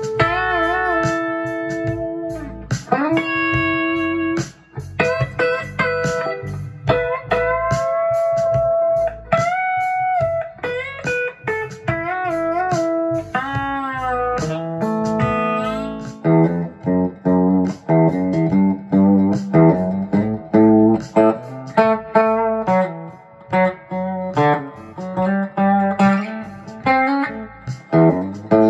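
Electric guitar played through a Mu-Tron Boostron II clean-boost and compressor pedal. Long sustained single notes with bends and vibrato give way, about sixteen seconds in, to a quicker run of short picked notes on a second guitar.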